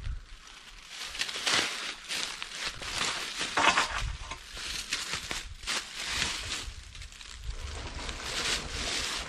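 Dry leaf litter and brush crunching and crackling irregularly, many small crackles and rustles with no engine running.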